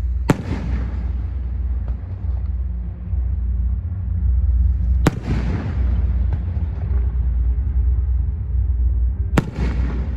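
Three loud firework salute bangs about four to five seconds apart, each trailing off in an echo, over a steady low rumble.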